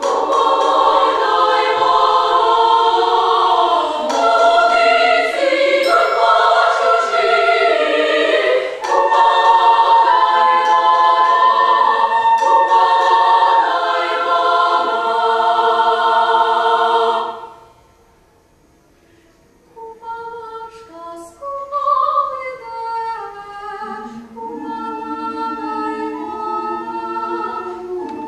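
Women's choir singing with a female soloist, full sustained chords that cut off together about 17 seconds in. After a brief silence a single voice carries the melody over a softer choir, and lower choir parts fill in again near the end.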